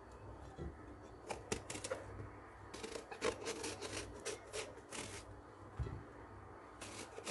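Blade scraping strips of skin off an eggplant: faint, quick, irregular scraping strokes, coming thicker for a couple of seconds in the middle.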